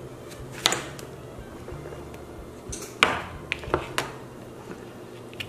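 Kitchen knife cutting yellow squash on a cutting board: a sharp knock about a second in, then a cluster of knocks and clicks around three to four seconds in.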